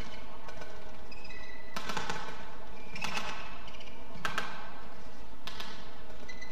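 Badminton rally: rackets striking the shuttlecock about four times, roughly once a second and a bit, each a sharp crack. Short high squeaks of shoes on the court between the strikes.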